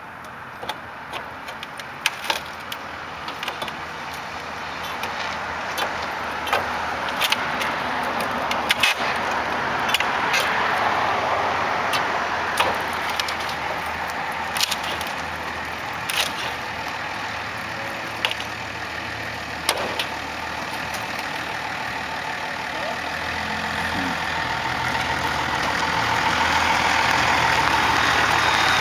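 A motor vehicle's engine running, its noise swelling about ten seconds in, easing off, then rising again near the end, with many sharp knocks and clatters scattered throughout.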